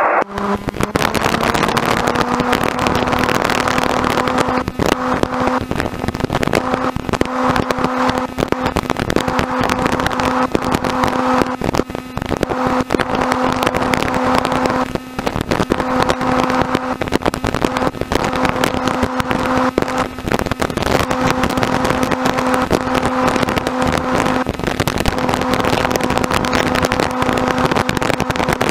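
Robin DR400 light aircraft's piston engine and propeller running at low taxi power, heard from inside the cockpit: a steady drone with a few brief dips.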